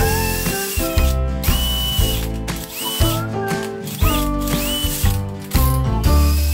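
Background music: held melodic notes, some sliding in pitch, over a beat that lands about once a second.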